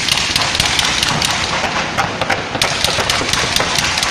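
Fireworks crackling: a dense rapid run of sharp pops and snaps that starts suddenly and dies away near the end, over a steady rumble of the display.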